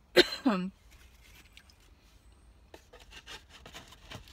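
A short voiced sound with a falling pitch just after the start. Later, a few seconds in, soft scattered rustles and clicks from handling a takeout breakfast container.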